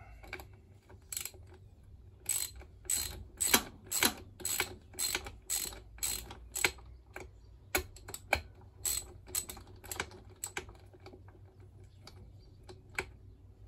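Socket ratchet clicking in a long run of quick strokes, about three clicks a second, as a bolt on the engine cases is wound out; the clicks thin out near the end.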